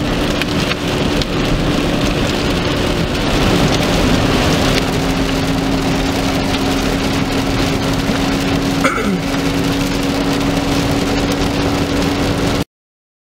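Heavy rain pelting a car's windshield and roof, heard from inside the car, with a steady low hum from the car underneath. It cuts off abruptly near the end.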